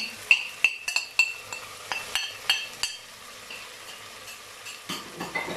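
A metal spoon clinking and scraping against the pressure cooker pot, about ten quick ringing taps in the first three seconds, as powdered spices are stirred into the frying onion-tomato masala; after that a soft sizzle of the frying goes on.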